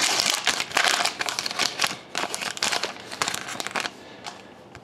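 Wrapper of a 2011-12 Upper Deck SPx hockey card pack crinkling as it is torn open by hand: dense, rapid crackling that thins out about four seconds in.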